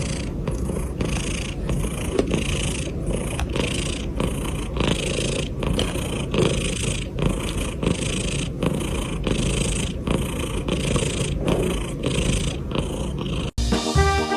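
A cat purring in a steady rhythm of about two pulses a second, cut off sharply near the end.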